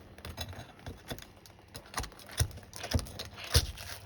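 Scattered clicks, scrapes and knocks of a steel nail bar prying under asphalt shingles, with four sharper knocks in the second half.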